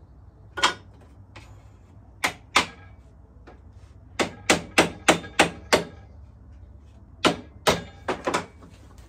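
Small hammer tapping on a thin wooden lattice slat, knocking out old staples: about a dozen sharp knocks in short groups, with a quick run of six in the middle.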